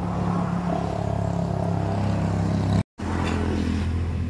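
A motor vehicle engine running with a steady low hum. The sound cuts out for an instant about three seconds in, then the hum resumes at a slightly different pitch.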